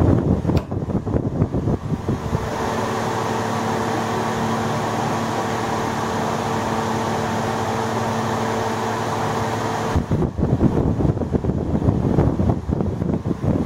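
Gusty wind noise buffeting the microphone. For about eight seconds in the middle it gives way to a steady mechanical hum with a low drone, which starts and cuts off abruptly.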